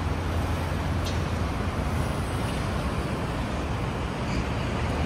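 Steady road traffic noise: engines and tyres of passing cars, with no single vehicle standing out.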